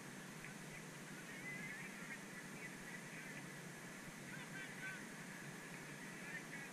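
Faint steady background hiss with scattered short, distant calls, like honks or chirps.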